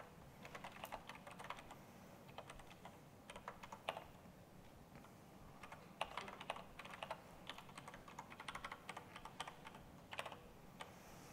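Faint typing on a computer keyboard: irregular key clicks in short runs, with a pause of about two seconds near the middle.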